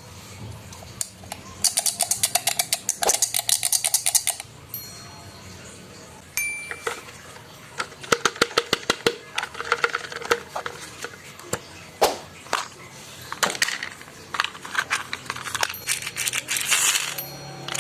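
Small hard plastic toys clattering and rattling, in three long runs of rapid clicks with scattered single knocks between.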